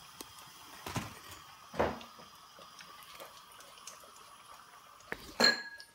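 Kitchen utensils knocking against the pan while vadas deep-fry in hot oil: four sharp clunks, the loudest near the end, over a faint steady hiss and hum.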